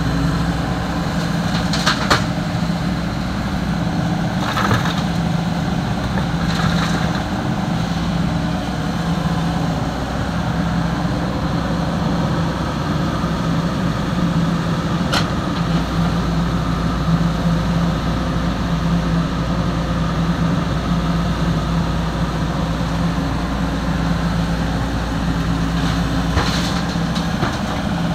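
Excavator's heavy diesel engine running steadily, with a few short sharp knocks spread through.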